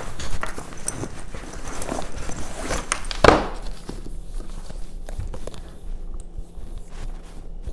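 Rummaging in a fabric school backpack on a wooden table: rustling and knocks, with one loud thump about three seconds in. After that, quieter handling of a paperback book.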